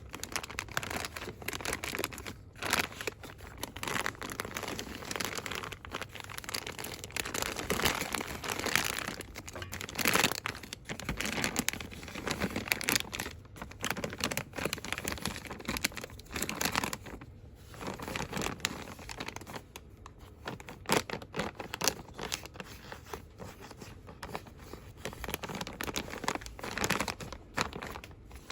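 Fast, aggressive hand rustling and crinkling of cosmetics packaging, with continuous crackly handling noise broken by short sharp crinkles.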